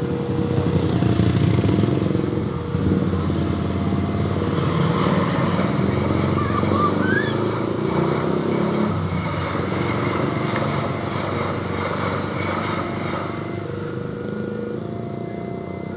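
A vehicle engine running with a steady low rumble. It swells over the first couple of seconds, then slowly fades as it passes.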